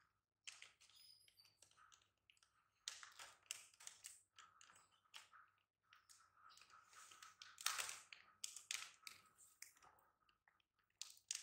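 Faint, irregular clicks and crinkles of a clear plastic popcorn cup and its snap-on lid being handled and opened.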